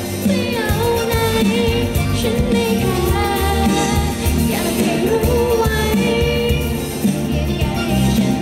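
Live pop song with a woman singing lead in Thai over a band, holding long, sliding notes.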